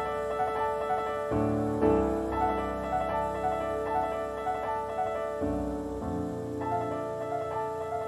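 Solo piano playing a slow passage: short repeated upper notes, a couple a second, over a held chord. The harmony shifts about a second and a half in and again twice after five seconds.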